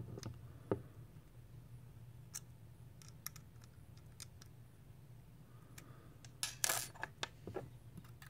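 Faint, scattered small metallic clicks and taps of a small screwdriver working the post screws on a Sigelei Moonshot RTA's build deck, tightening them down. A louder cluster of clicks comes about six and a half seconds in.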